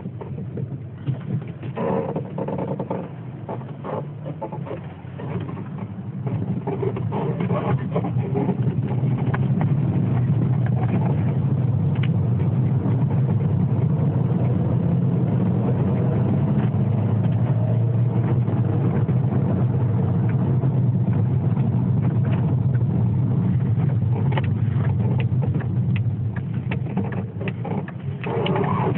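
Volkswagen Golf Mk4 running, a steady low engine and road hum that grows louder about six seconds in, with many short creaks and clicks over it: the squeak the car is being recorded for.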